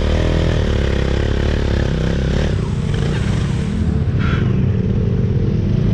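Motorcycle engine running under load, its revs rising and falling as it is worked along a rough trail.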